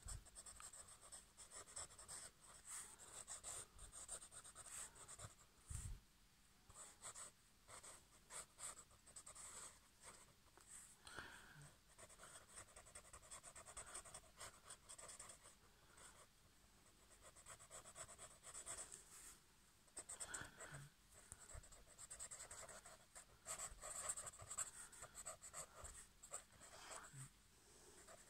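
Ink pen scratching on paper in quick, irregular scribbling strokes, faint.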